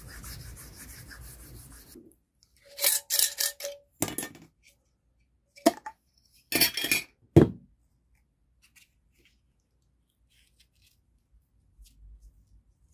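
Cloth rubbed briskly back and forth along a leather edge, burnishing it, for about two seconds. Then come several loud bursts of clinks and scrapes as a glass jar and its lid are handled, one with a brief ringing tone, and a few faint clicks near the end.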